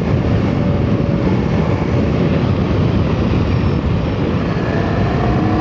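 Ducati Multistrada motorcycle running on the move, its engine note drifting slowly up and down in pitch under a heavy, steady low rumble of wind and road noise.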